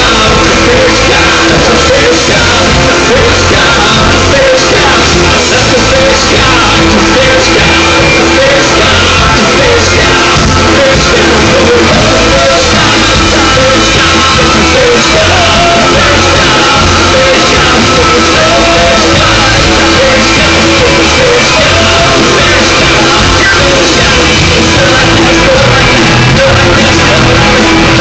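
Live rock band playing loud, with a voice singing and shouting over it. The recording sits close to full scale.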